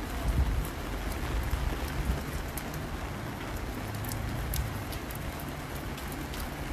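Steady rain falling, with scattered sharp ticks of drops landing close by and an uneven low rumble underneath.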